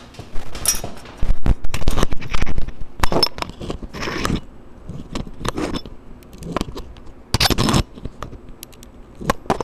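Irregular metallic scraping and small clinks as a chainmail ring and a tiny flattened-wire rivet are handled on a metal plate, with a few longer scraping stretches between the short clicks, while the rivet is pushed into the ring's punched hole.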